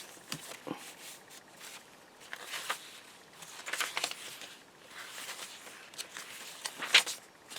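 Paper rustling and light crinkling as journal pages and fussy-cut paper pieces are handled, in short irregular bursts with a sharper snap of paper near the end.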